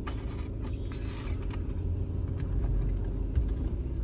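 Steady low rumble of a car on the move, engine and road noise heard from inside the cabin, with a few faint clicks.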